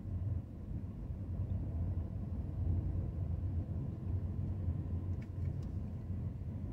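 Low, steady rumble of a car's engine and road noise heard from inside the cabin while moving slowly in heavy traffic, with a couple of faint clicks about five seconds in.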